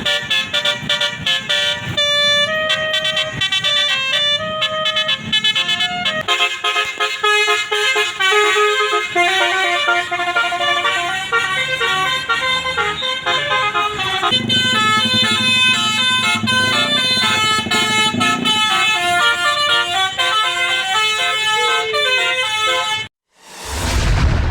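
Bus 'telolet' Basuri multi-tone air horns playing quick melodic tunes, the notes changing in steps. Near the end they cut off suddenly and a deep boom follows.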